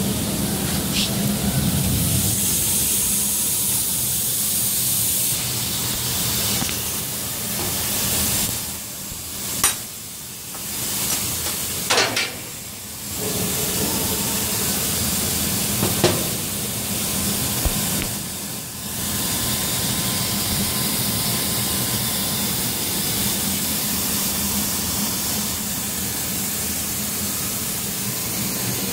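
Steady hum and hiss of laser-cutting machinery running, with a few sharp clicks as thick mild-steel parts are picked off the cut sheet with a magnet.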